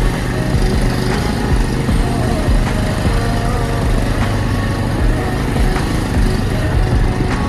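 Motorcycle engine running steadily while riding, a low even hum over a constant rushing noise.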